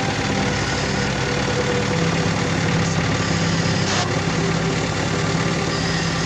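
Engine idling with a misfire and vibration, which the owner puts down to an injector misfiring in the fuel system. A short click about four seconds in.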